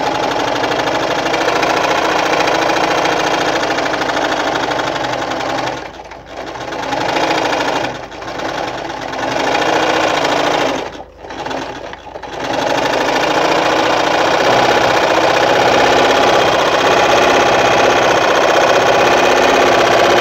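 Victoria Nuzstitch ZZ-570 electric sewing machine running as it sews a selected stitch pattern, stopping briefly about six and eight seconds in and twice around eleven to twelve seconds, then running steadily to the end.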